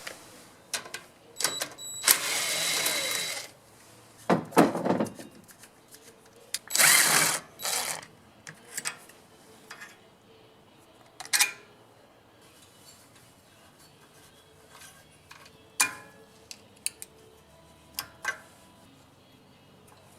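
Hand tools at work on a small four-stroke engine as its carburetor is unbolted: a few short bursts of tool noise in the first half, then scattered metal clicks and clinks.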